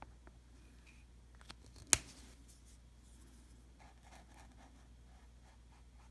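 A few faint ticks, then a single sharp click about two seconds in, followed by a fine paintbrush scrubbing on textured canvas in quick, repeated strokes.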